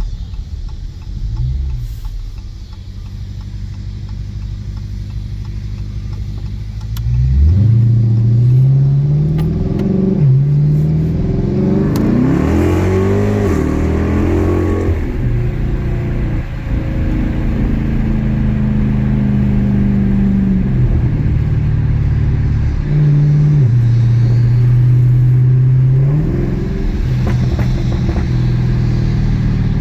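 2017 Dodge Charger R/T's 5.7-litre Hemi V8 exhaust, low and steady for about seven seconds. It then accelerates hard, its pitch climbing and dropping back at each gear change, and settles into steady running with a few more shifts near the end.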